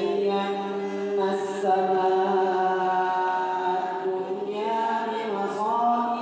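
A man chanting Arabic recitation into a microphone in the melodic Quranic style, with long held notes drawn out over several seconds.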